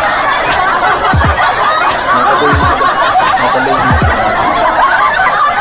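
Laughter, snickering and chuckling, over background music with a deep falling bass hit about every second and a half.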